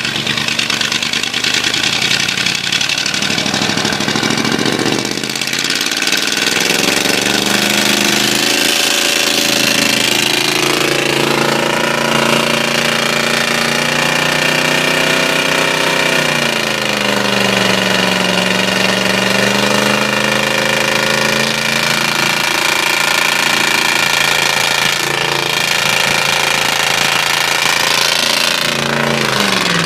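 Ford 351 Windsor V8 with a spun bearing running and being revved, its speed rising and falling several times and dropping near the end. It knocks, the sign of the spun bearing.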